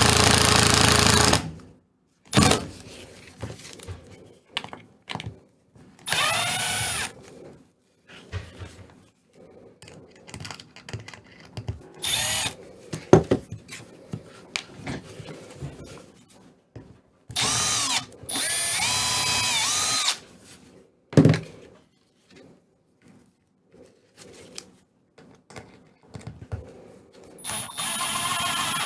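Cordless Milwaukee M12 Fuel power tool run in about five short goes, each spinning up and winding down, its bit working into light-blue foam. The longest run is about two and a half seconds, a little past halfway.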